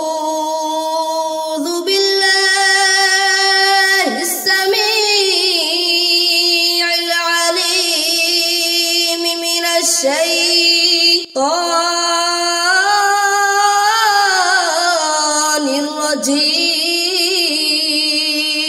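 A boy's solo Quran recitation in melodic tajweed style: long drawn-out phrases with held, ornamented notes in a high voice, broken by one short breath about eleven seconds in.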